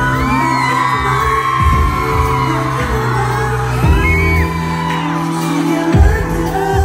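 Live K-pop concert sound: a pop track with heavy bass and a strong beat through the hall's sound system, with the group singing into microphones. High screams and whoops from fans rise and fall over the music.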